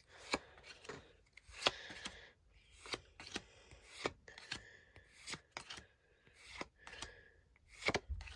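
Pokémon trading cards handled one by one: a quick run of crisp paper snaps and slides, two or three a second, as cards are pulled off a freshly opened booster pack's stack and flicked to the front or set down.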